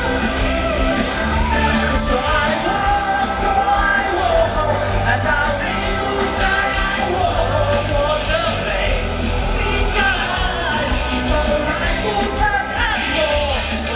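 Live rock band music, loud and continuous, with singing and shouting voices over it.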